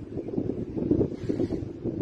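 Wind buffeting a phone's microphone: an uneven, gusty rumble that grows louder at the start.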